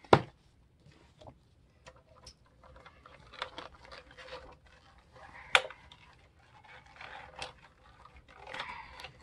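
Punched paper pages and metal twin-loop binding wire being handled as the pages are worked onto the wire: light paper rustling and scattered small clicks, with a sharp click at the very start and another about halfway through.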